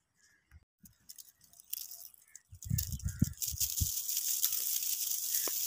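Phone handled and then moved through standing dry wheat. A few low bumps from handling come about three seconds in, then a steady dry rustling and crackling of wheat stalks and ears brushing against the microphone.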